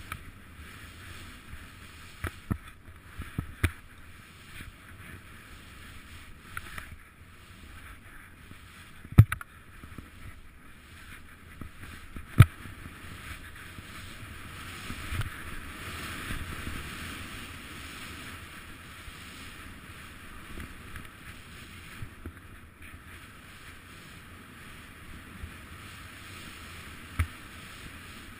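Skis running through powder snow, a steady rush of snow and wind that swells for a few seconds around the middle. Several sharp knocks cut through it, the loudest about nine and twelve seconds in.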